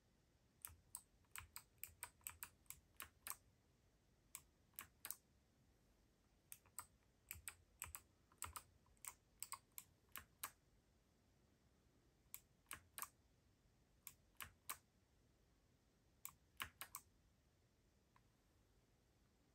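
Typing on a Keydous NJ80-AP wireless mechanical keyboard with Kailh BOX white switches: sharp key clicks in short irregular bursts, with pauses between them.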